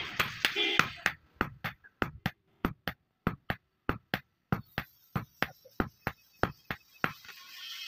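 Hand hammer striking a red-hot steel billhook blade on an anvil, a quick steady run of separate blows at about four a second.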